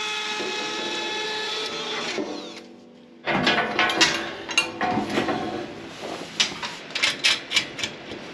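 Cordless drill running at a steady speed as it bores a hole into the staircase landing platform for the first main baluster, stopping about two seconds in. After a short lull, irregular knocks and clicks as the metal baluster and its hardware are handled and fitted.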